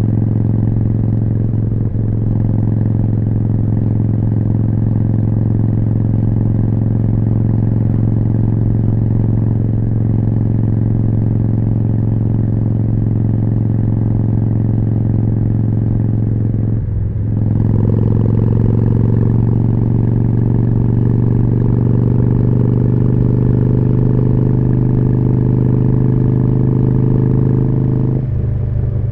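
Harley-Davidson Forty-Eight's air-cooled V-twin running through a Jekill & Hyde exhaust at a steady cruise. A little over halfway through, the throttle is briefly closed and reopened, and the note comes back a little higher and slowly rises. There is another short dip near the end.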